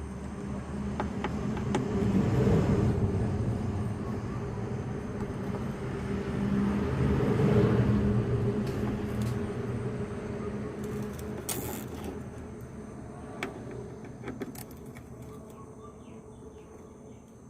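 A motor vehicle's engine running nearby, swelling twice and then fading as if vehicles pass, with a few light clicks in the second half.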